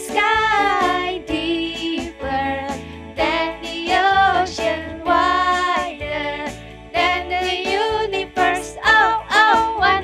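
A cheerful children's praise song: women's voices singing over a pop-style backing track with a steady beat.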